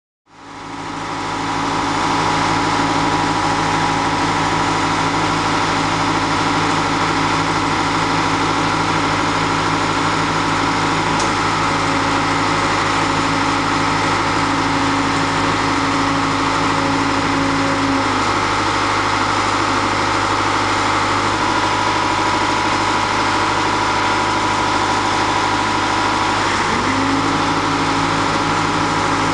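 Heavy diesel engine running steadily at a constant speed. Part of its hum drops away about two-thirds of the way through and returns with a brief dip in pitch near the end.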